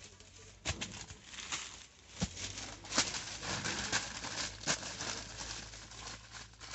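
Newspaper rustling and crinkling as a papaya is wrapped in it by hand, with several sharp crackles as the sheets are folded and crumpled around the fruit.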